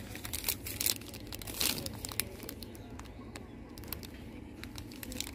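Crinkly plastic wrapper of a packet of glazed wafers rustling as it is picked off a shelf and handled, densest in the first two seconds, then a few light crackles, over a steady low hum.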